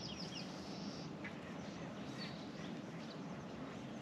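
Birds calling: a quick series of high, falling notes near the start, then a few single calls, over a steady low hum.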